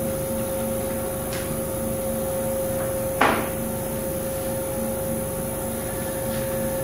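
Seat and guide machine's spindle motor running with a steady hum while it turns a tap in the chuck, cutting threads in a cylinder head hole; one sharp clack about three seconds in.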